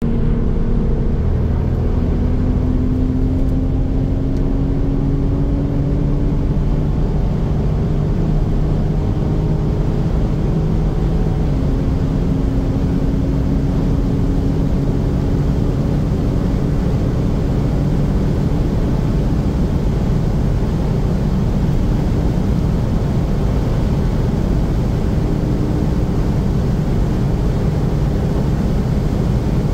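BMW Z4 M40i's tuned turbocharged 3.0-litre straight-six under hard acceleration, heard from inside the cabin over loud wind and tyre noise as the car goes from about 190 to about 300 km/h. The engine note rises slowly, drops once at an upshift to seventh about eleven seconds in, then climbs slowly again.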